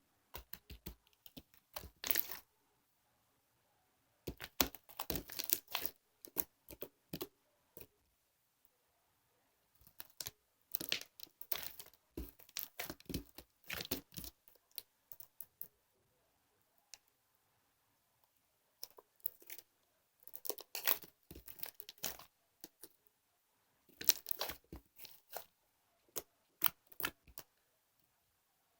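Bursts of crinkling, tearing-like handling noise, each lasting a second or few, with gaps of silence in between.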